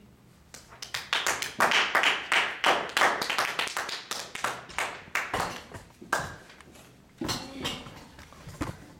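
A small audience clapping, starting about half a second in, strongest for the first few seconds and then trailing off, with a few last claps around seven seconds in.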